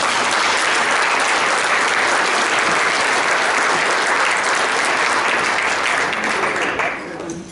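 Audience applauding steadily, then tapering off near the end.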